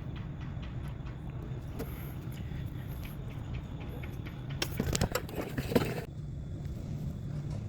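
Nissan Pathfinder engine cranking on the starter without catching, a steady rhythmic churn with a noisier rattling stretch about five seconds in, cutting off suddenly at the end. It is a crank-no-start with code P0335 set, the crankshaft position sensor circuit fault.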